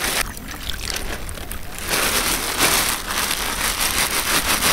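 Plastic bag crinkling and rustling as bait dough is kneaded and squeezed inside it by hand. It is quieter at first and gets louder and busier from about two seconds in.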